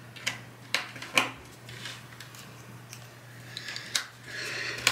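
Plastic Pintoo jigsaw puzzle pieces being pressed back into place in an assembled section: a handful of sharp clicks with softer rubbing of plastic between them.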